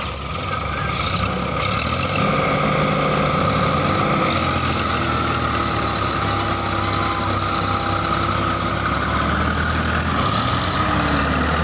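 Tractor diesel engines running steadily in a muddy field, one of them a Sonalika with its rear wheels sunk in the mud.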